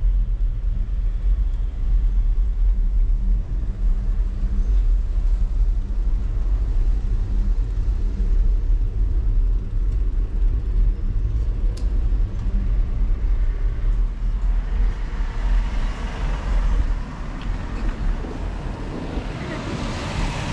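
Steady low rumble of wind and road noise on a bike-mounted GoPro's microphone during a slow street ride, with a car's engine running close by. The rumble eases about three seconds before the end as brighter street sounds come up.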